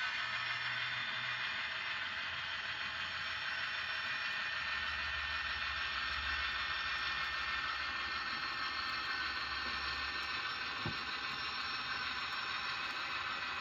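Model diesel locomotive pulling two lumber cars along the layout track: a steady hissing whir with a faint low rumble. A single short knock about eleven seconds in.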